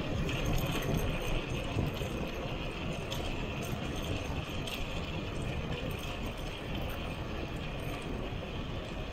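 Steady rush of wind on the microphone mixed with rolling road noise from a bicycle on the move, with faint scattered ticks and rattles.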